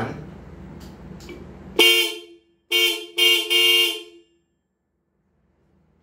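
Black Supertone 12 V electric twin disc horns, the 435 Hz high and 335 Hz low tones sounding together, in three short blasts about two seconds in, the last the longest.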